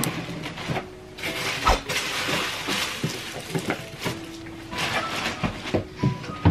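Rummaging through a drawer and a cardboard box: irregular bursts of rustling with scattered short knocks and thumps.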